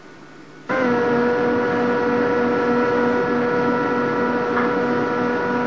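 A boat's engine running with a steady, loud hum and a low throb pulsing about twice a second. It starts suddenly less than a second in.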